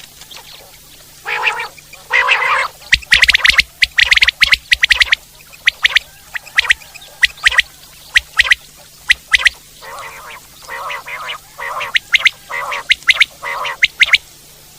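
Common quail calling loudly. Low, hoarse nasal notes alternate with runs of sharp, clipped high notes that are repeated rapidly.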